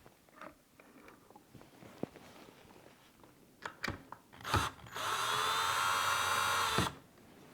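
Ryobi cordless drill driving a screw into the lock's interior assembly, running steadily for about two seconds near the end and stopping suddenly. A few light clicks and knocks of handling come before it.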